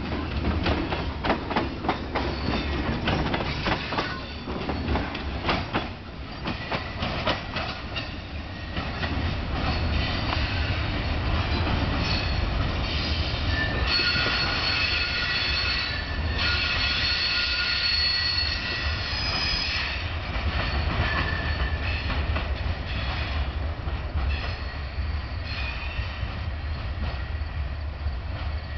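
Freight train cars rolling past and away, their wheels clacking rapidly over rail joints at first. About halfway through, several seconds of high-pitched squealing from the wheels against the rails, over a steady low rumble.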